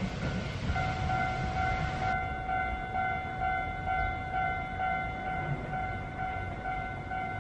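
Japanese railway level crossing alarm ringing its electronic, steadily pulsing warning tone, switching on about a second in. Underneath is the low rumble of a tram on the line.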